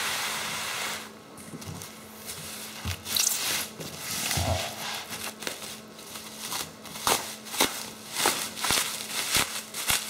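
Bubble wrap and plastic packaging crinkling and rustling as it is pulled off a flat part by hand: a rushing rustle for about the first second, then many short, sharp crackles through the second half.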